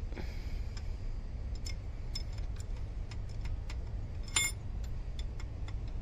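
Ratchet wrench clicking in short irregular runs as the crankshaft of an Audi 2.0 TFSI engine is turned by hand to bring a piston to top dead center, with one louder metallic clack about four seconds in, over a steady low hum.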